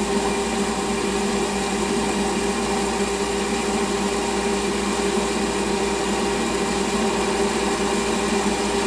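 Small bench lathe running at a steady speed with a constant motor hum, while a hand-fed tool takes a cut on an eccentric held off-centre in the chuck.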